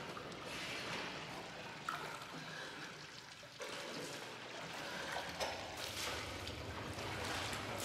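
Water trickling and dripping faintly off a soaked person climbing out of a metal tub of water, with a few small splashes.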